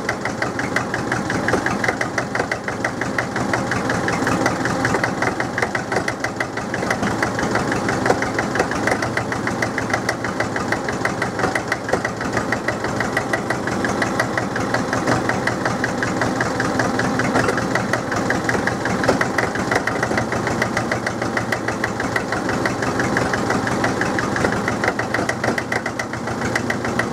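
The International BD-264 four-cylinder diesel of a Drott 100 loader running just after a cold start, warming up with a rapid, even beat.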